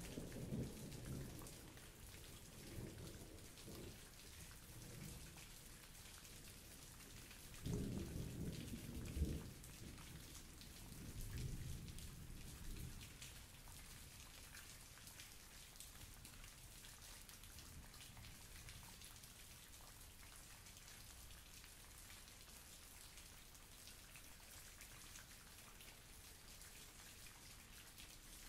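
Thunderstorm: steady rain hissing throughout, with thunder rumbling at the very start and again from about eight seconds in, loudest around nine seconds and dying away by about thirteen seconds.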